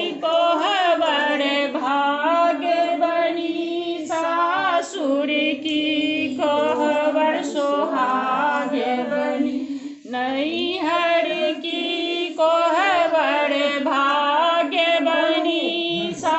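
Several women singing a Hindi song together in long, continuous sung phrases.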